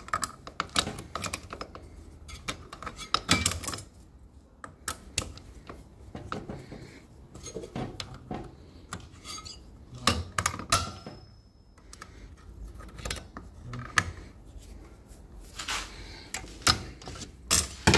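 Irregular metal clinks and clicks as the clutch of a Minsk motorcycle is taken apart by hand, its springs and discs knocking together.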